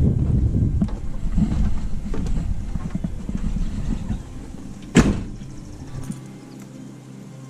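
Low rumbling noise, then a vehicle door slams shut once about five seconds in; after it the rumble drops away and quieter steady tones remain.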